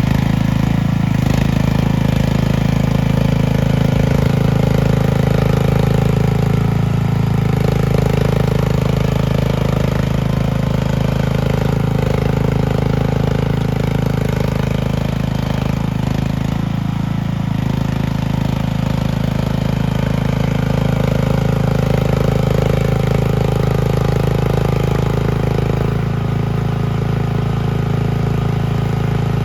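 Mini skid steer engine running steadily, with a higher note above it that rises and falls and drops away a few times.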